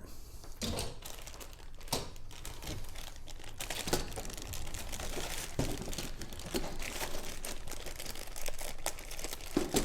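Plastic packaging crinkling, with light clicks and rustles of plastic kit parts being handled.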